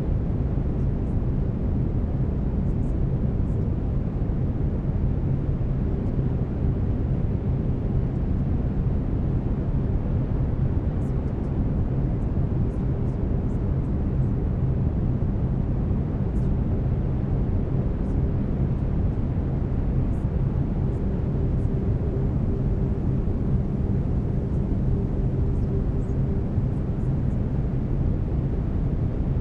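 Steady brown noise: a deep, even rushing hiss weighted toward the low end, holding a constant level throughout. Faint steady low tones of binaural beats sit beneath it.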